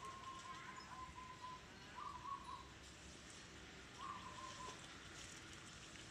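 A faint bird call: one long, steady whistled note of about two seconds, then two shorter wavering notes at about two and four seconds in.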